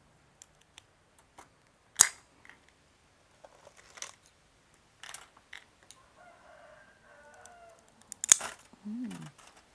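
Blue swimmer crab pieces and shells clacking and knocking as they are handled and set down, scattered light clicks with two sharp, loud knocks about two seconds in and near the end.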